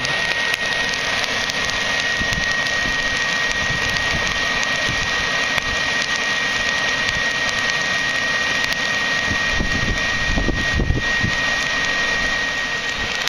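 Hair dryer running at full blast, forcing air through a steel pipe into a charcoal forge: a steady rushing whoosh with a constant high whine, and scattered small crackles from the burning charcoal. A low rumble comes in briefly about ten seconds in.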